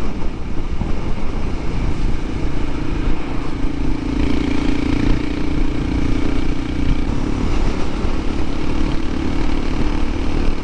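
Honda CT125 Hunter Cub's single-cylinder engine running under way, mixed with heavy wind rush on the microphone. The engine note stands out more clearly from about two to seven seconds in.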